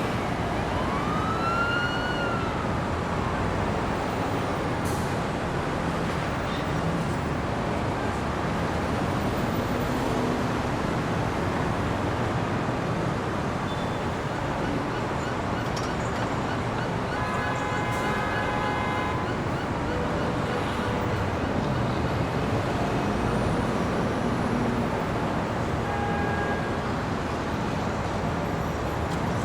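City street traffic with a steady rumble of passing vehicles. About a second in there is a single short rising-and-falling siren whoop. About two-thirds of the way through a vehicle horn sounds for about two seconds, and a brief horn toot comes near the end.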